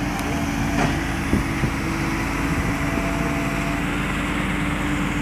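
Heavy diesel engines of a Fendt tractor and a Cat 315C tracked excavator running steadily under load, pulling a stuck trailer out of the mud.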